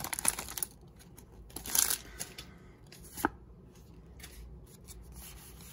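Pokémon trading cards being handled and slid against one another, with short rustles near the start and about two seconds in, and a single sharp click a little after three seconds.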